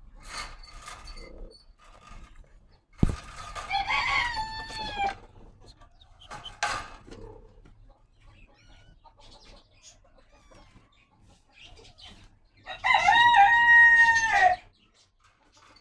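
A rooster crowing twice: a shorter crow about three seconds in and a longer, loud one near the end. A couple of sharp knocks and faint rustling come in between.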